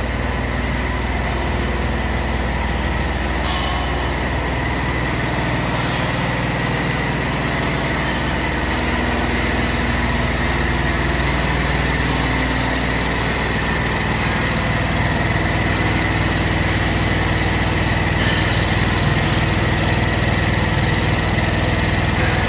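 Mavi Viproc vibratory fluidized-bed dryer running steadily: a continuous machine drone with a constant high-pitched whine above it.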